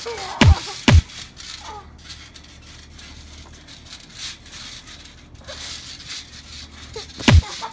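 Thumps and knocks from two kids sparring in boxing gloves on a trampoline. There are two loud thumps about half a second apart near the start, lighter knocks through the middle, and another loud thump near the end.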